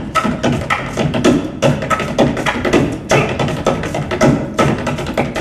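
Wooden poles struck on a stage floor in a fast percussion rhythm: sharp taps several times a second, unevenly spaced, with some louder accents.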